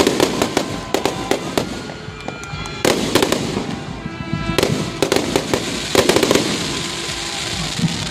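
New Year's fireworks going off: clusters of sharp bangs and rapid crackling every second or two over a continuous crackle.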